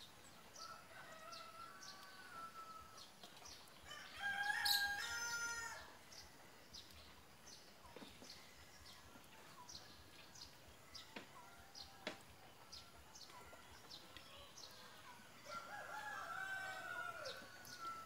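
A rooster crowing several times, loudest about four seconds in and again, fainter, near the end, over many short chirps of small birds.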